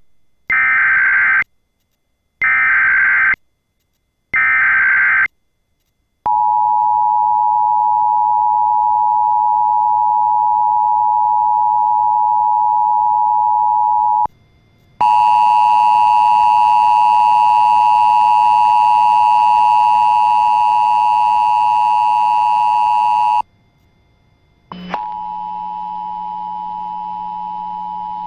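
Emergency Alert System signal: three short bursts of warbling SAME header data, then the steady two-tone attention signal (853 and 960 Hz) for about eight seconds. After a short gap a harsher, distorted relay of the alert tone with many overtones follows for about eight seconds, and near the end the two-tone attention signal starts again over a low hum.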